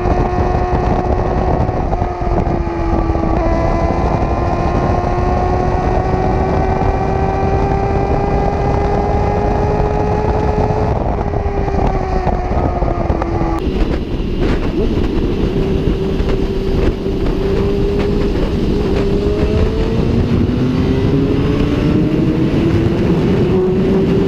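Suzuki GSX-R750 SRAD inline-four engine running at speed under a heavy rush of wind noise, its pitch slowly rising and falling with the throttle. The sound changes abruptly about halfway through, then the engine note climbs steadily toward the end.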